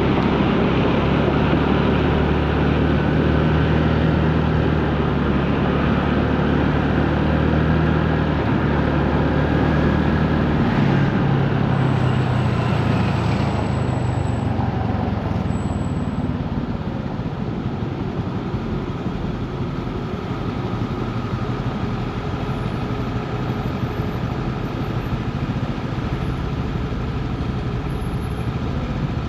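Honda Navi's small single-cylinder engine running on a ride through city traffic, with road noise. Its note drops about ten seconds in, and it runs a little quieter after that.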